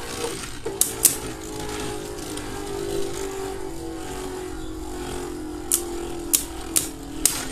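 Two Beyblade Burst spinning tops, Guilty Longinus and Roar Bahamut, whirring on a plastic stadium floor: a steady whir that slowly sinks in pitch as they lose speed. Sharp clacks of the tops striking come about a second in and several times near the end.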